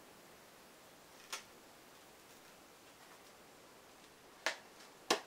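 Quiet room with three brief sharp clicks: one about a second in and two close together near the end. They are handling knocks from the sander as a cloth-backed sanding disc is pressed onto its hook-and-loop pad.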